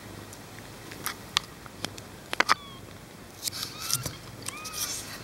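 Newborn kittens nursing and squirming: scattered sharp clicks and rustles. From about two and a half seconds in come a few short, faint squeaks that bend up and down.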